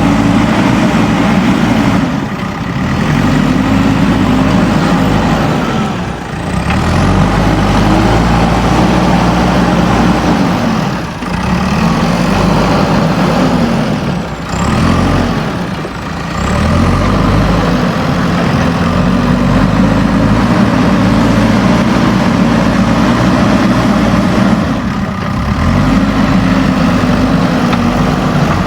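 JCB backhoe loader's diesel engine working under load, revving up and down over and over as the machine pushes soil, with a short drop in engine note every few seconds.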